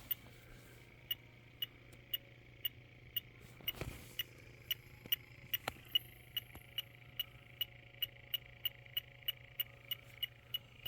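Electronic refrigerant leak detector ticking steadily, about two ticks a second, as it is swept in search of a leak. A faint steady hum underlies it, and there is one dull knock about four seconds in.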